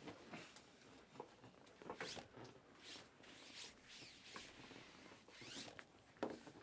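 Faint, irregular swishes and rustles of Panini Mosaic basketball trading cards being slid and flipped against one another as a freshly opened pack is sorted, about one brief swish every half second to second.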